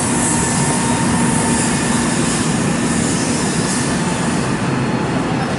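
Steady rumble of heavy construction machinery, with a low engine hum running under it.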